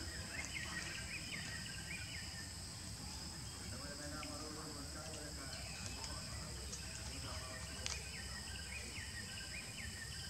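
Forest ambience: a steady high-pitched insect drone with many short chirping calls over a low rumble.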